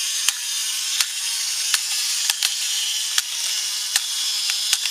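Wind-up spring mechanism of a plastic Buzz Lightyear candy dispenser toy running after its button is pressed: a steady high whirr with a sharp click about every half to one second as it dispenses Nerds candy.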